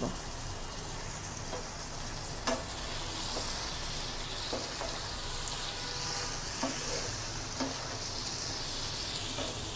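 Pumpkin pieces sizzling in oil in a non-stick frying pan as a spatula stirs them, with a few light knocks of the spatula on the pan. The curry's liquid has cooked off, so the vegetables are frying in the separated oil.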